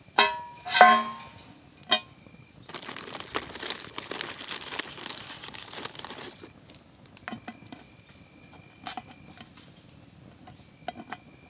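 Metal clanks twice as the camp skillet is handled, then a few seconds of rustling hiss. Scattered small crackles and clicks follow from the wood fire in the folding stove, over crickets trilling steadily.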